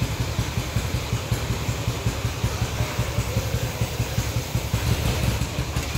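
Steady low rumble of background noise, unchanging throughout.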